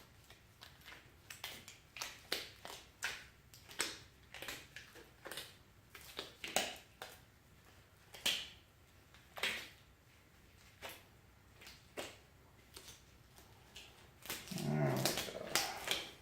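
Wet, sticky clicks and smacks of very stringy, tacky assembly lube being worked by hand onto a camshaft. The clicks are irregular, about one or two a second, with a brief low voice-like sound near the end.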